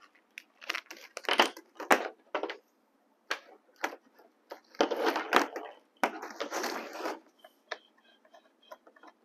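Black corrugated plastic hose being handled: irregular crackling, scraping and knocking as it is uncoiled and moved across a table, in two spells, with a few small clicks near the end as its fitting is worked onto the steamer.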